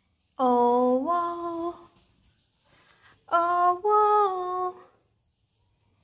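A woman's voice in two drawn-out sing-song calls or hums, each holding one note and then stepping up to a higher one.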